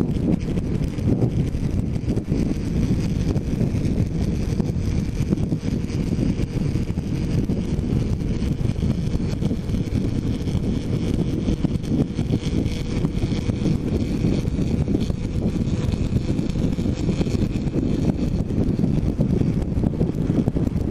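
Heavy wind noise from a motorcycle helmet-mounted camera at road speed, a steady low rumble with a motorcycle engine running faintly underneath.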